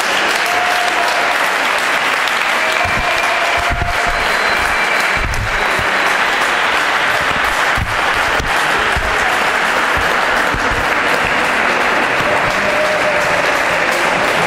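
Spectators applauding steadily as a table tennis match is won, with a few dull thumps underneath.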